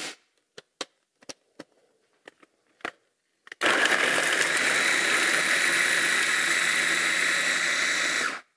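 A few light clicks, then about three and a half seconds in a KitchenAid 3.5-cup mini food chopper starts on its chop speed. It runs steadily for about five seconds, its blade chopping raw carrots, and cuts off suddenly near the end.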